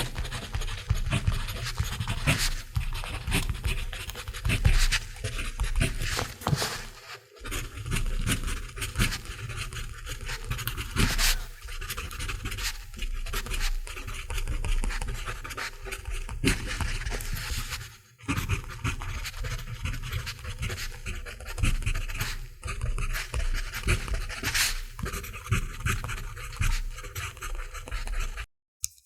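Mechanical pencil writing on paper: a continuous run of many short strokes of the lead, with brief pauses about seven and eighteen seconds in, stopping just before the end.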